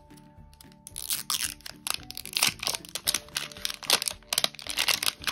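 Crinkling and crackling of the paper-and-plastic wrapping layer being peeled off an L.O.L. Surprise toy ball, in quick irregular snaps that start about a second in.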